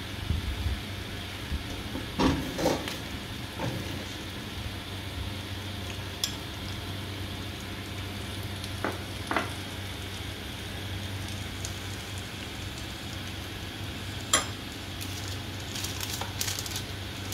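Steady faint sizzle of ghee-brushed bread on the hot plates of an electric sandwich maker, with a few short clinks and scrapes of a spoon against a glass bowl.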